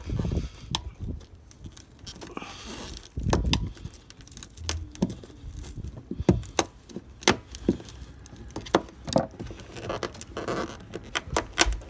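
Hands working on a small boat switch and its fittings: a string of irregular sharp clicks and light knocks, with a few duller thumps near the start and about three seconds in.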